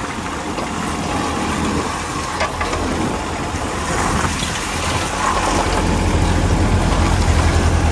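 Excavator's diesel engine running steadily with a low hum, growing louder about five seconds in as the machine is worked.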